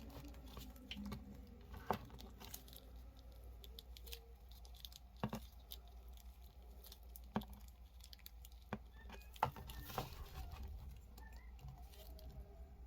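Faint handling of a plastic action figure: scattered light clicks and taps as its joints are moved and posed, over soft rustling.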